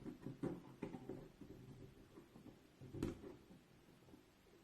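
A few faint, short knocks and taps of kitchen utensils being handled, with quiet between.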